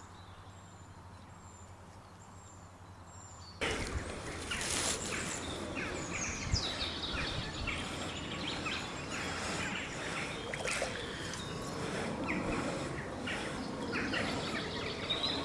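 Quiet lakeside ambience with bird calls. About three and a half seconds in it jumps to a louder, busier outdoor sound of birdsong mixed with short clicks, knocks and rustles.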